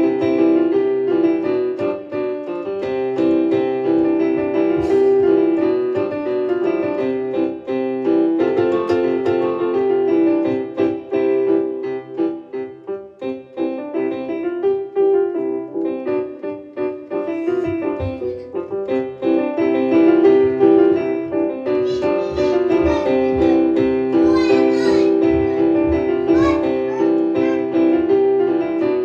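Background music: solo piano.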